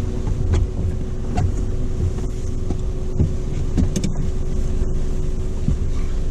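A 4x4's engine idling, heard from inside the cabin as a steady low rumble with a faint steady hum. Scattered light clicks and knocks sound over it.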